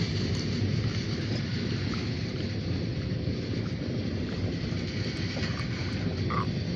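Steady low rumble of a diesel freight train at the yard, with wind buffeting the microphone. A brief high squeak comes near the end.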